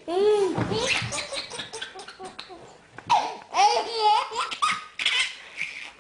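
Baby laughing in fits of belly laughter, with a lull about two seconds in before a second loud bout of laughter.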